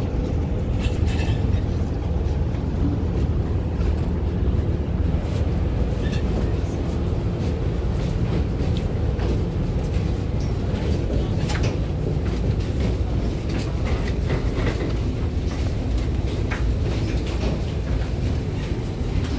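Steady low rumble inside an airport jet bridge, with scattered footsteps, clicks and rattles from a line of passengers walking along its floor.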